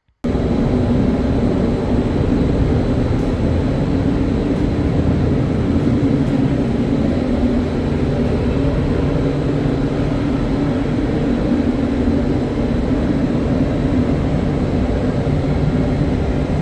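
Paint spray booth running during spraying: a loud, steady rush of air and fan drone that starts abruptly just after the beginning and holds level throughout.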